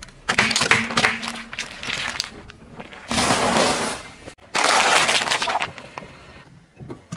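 Car tyre rolling over and crushing food and plastic packaging: plastic pudding cups, round crackers and a plastic tub of cherry tomatoes. It makes crunching and cracking in three separate bursts of one to two seconds each, with short pauses between.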